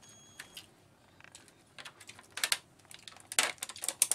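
Thin clear plastic lid being worked off a plastic tub of sweets by hand: scattered sharp clicks and crackles, mostly in the second half.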